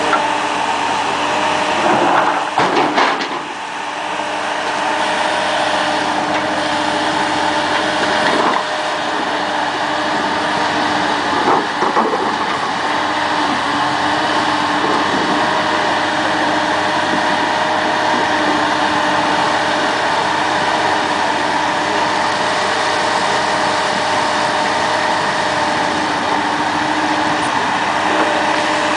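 Engine and hydraulics of a floating excavator running steadily with several held tones, while it digs in the water and dumps its bucket into a steel container. A few short knocks and clatters of the bucket and its load come about two seconds in, near nine seconds and around twelve seconds.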